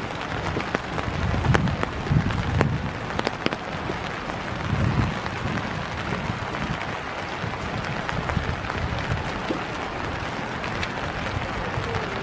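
Steady hiss of winter rain falling on a wet boardwalk and leaf litter, with a few sharp drip clicks. Irregular low muffled thumps come through in the first half.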